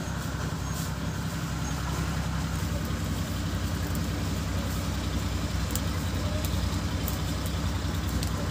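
An engine running steadily at a constant speed, a low, even drone, with faint scattered crackles from the wood fire under the pot.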